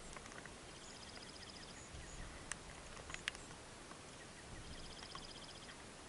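Dark-eyed juncos at a seed pile: two short, high trills, about a second in and again near the end, with a few sharp clicks or chips in between.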